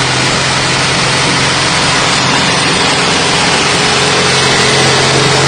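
Citroën 2CV air-cooled flat-twin engine driving a snowblower, running steadily. It has the sound of a 2CV car.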